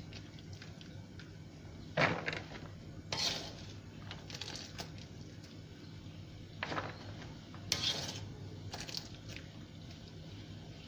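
Wire mesh strainer scooping boiled peanuts out of the broth in a metal wok, with about six sharp clinks and knocks of the strainer against the pan spread through, and quieter wet scraping between them.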